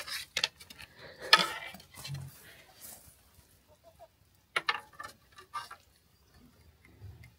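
An animal chewing and crunching a hard biscuit: irregular sharp crunches and clicks, the loudest about a second and a half in.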